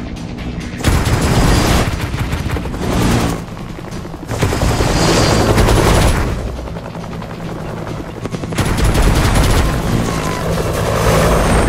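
Helicopter rotors chopping rapidly at close range, swelling loud and fading back several times, with music underneath.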